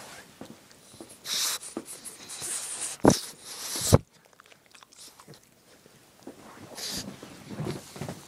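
Two pugs play-fighting right at the microphone: scuffling and mouthing noises with rustling. The loudest sounds are two sharp knocks about three and four seconds in, with a quieter stretch afterwards.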